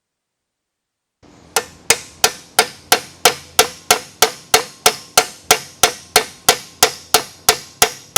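Hammer blows on steel in a steady rhythm, about three a second, each with a short metallic ring. The blows are driving the spindle out of a Datsun rear hub assembly.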